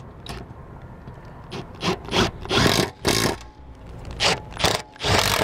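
Cordless drill/driver driving screws into an RV awning arm's mounting bracket, in several short bursts.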